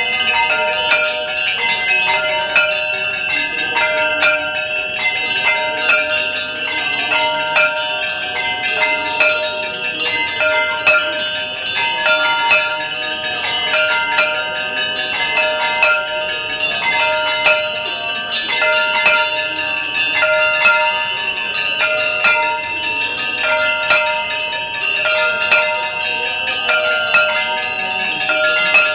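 Hindu temple bells ringing without pause, many bright metallic tones overlapping as they are struck over and over.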